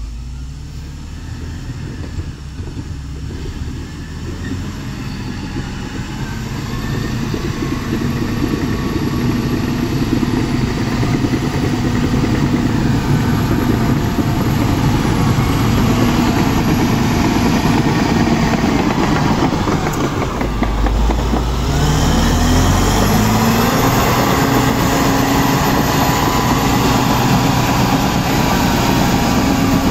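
Caterpillar D7R crawler dozer's diesel engine running as the machine moves over mud, growing louder as it comes closer. About two-thirds of the way through, the engine's pitch dips with a low rumble, then rises again.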